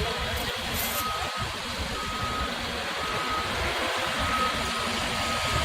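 Backup alarm on heavy earthmoving machinery beeping about once a second, which means the machine is reversing or travelling, over the low rumble of a diesel engine.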